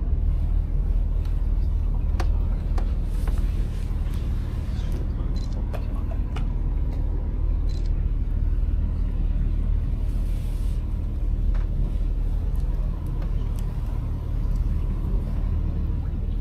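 Steady low rumble of a canal tour boat's engine running at cruising speed, with a few light clicks and faint voices over it.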